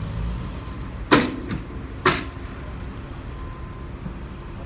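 Two sharp knocks about a second apart, with a lighter tap between them, over a low steady rumble: nails being driven on the job.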